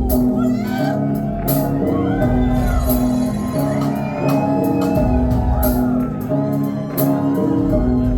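Live rock band playing an instrumental stretch: a repeating keyboard and bass riff over drums, with cymbal hits about every second and a bit. A few shouts ride over the music.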